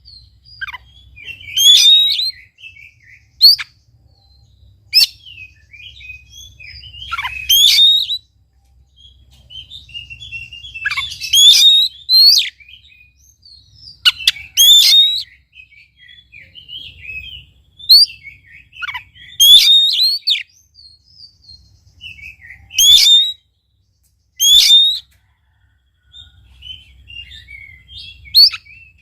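Oriental magpie-robin singing loud, varied whistled phrases mixed with harsh chattering notes, one short burst every one to three seconds, with brief pauses between them.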